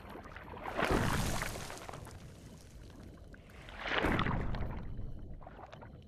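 Underwater ambience: two swelling rushes of bubbling water noise, about a second in and again about four seconds in, each fading away slowly.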